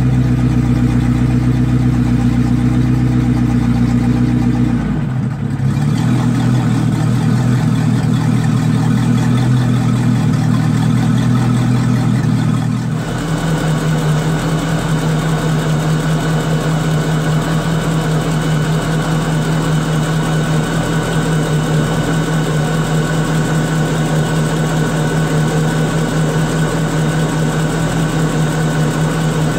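Volvo Penta 5.0 GXi fuel-injected V8 sterndrive engine running steadily on its trailer, with a garden hose supplying the cooling water. It is heard first from behind the boat at the drive, then, from about thirteen seconds in, from over the open engine bay, where the sound changes character.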